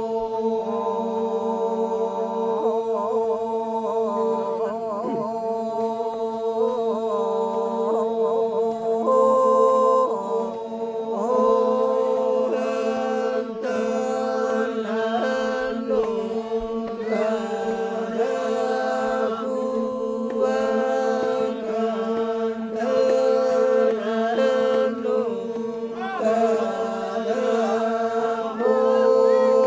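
Toraja Manimbong ritual chant: a group of men's voices singing in unison over steady held drone notes, with a slow, winding melody above them.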